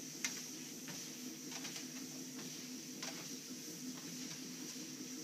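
Star Trac treadmill running with a steady motor and belt hum, with a few irregular knocks from footfalls on the moving belt.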